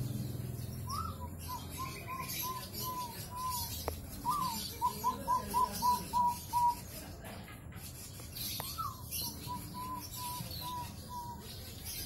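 Caged zebra dove (perkutut) cooing: three phrases, each opening with a short rising note followed by a quick, even run of short coos, the middle phrase the loudest.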